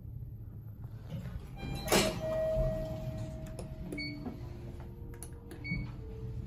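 National Otis passenger elevator arriving: a sharp knock about two seconds in, then a steady chime tone that rings for about two seconds and fades. Two short high beeps follow later.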